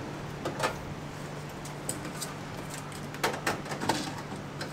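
Steady low hum of a vending machine, with a few short clacks and knocks as a hand pushes through the swinging pick-up flap and lifts out a cup of instant noodles.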